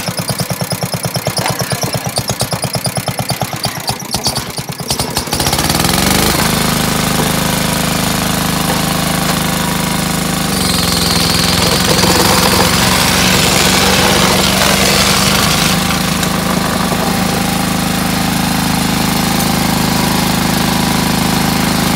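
Small petrol engine on a hydraulic power pack, idling with a rapid even pulsing, then speeding up about five seconds in to a steady, louder drone as it drives hose-fed hydraulic rail tools. A brighter hiss with a high whine joins for about five seconds midway.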